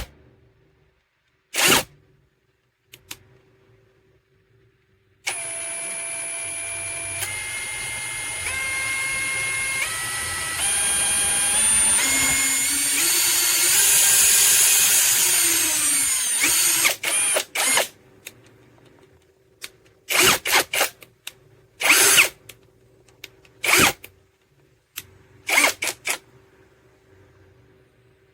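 Brushless 1/2-inch cordless impact wrench on lug nuts: one long run of about eleven seconds whose pitch steps up several times, then a string of short trigger bursts.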